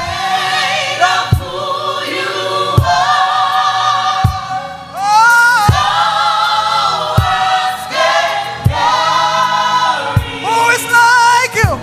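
Gospel choir singing with sustained, vibrato-laden voices over a slow steady beat, about one stroke every second and a half.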